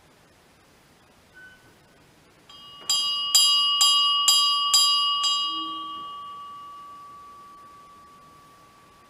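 Small church bell hung in a wall bracket, swung by a pull rope: its clapper strikes six times, about two a second, then the bell rings on and slowly fades.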